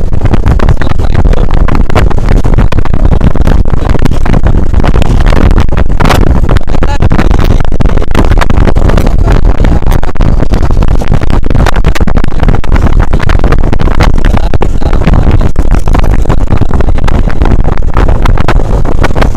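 Heavy wind buffeting on the microphone over the engine and road noise of a vehicle moving at speed, a dense, loud, crackling rumble.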